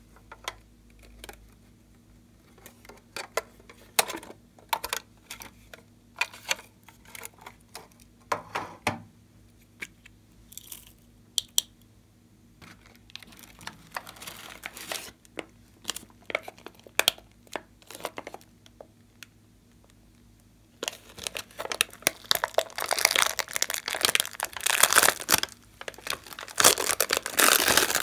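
Scattered light clicks and taps, then, about two-thirds of the way through, dense crinkling of a thin plastic slime tray being handled and squeezed.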